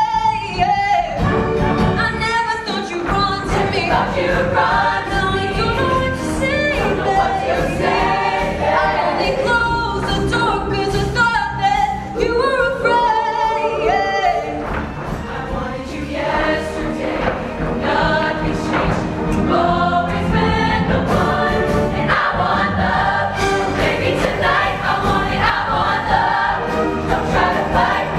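A show choir singing in parts with instrumental backing, a steady bass line beneath the voices.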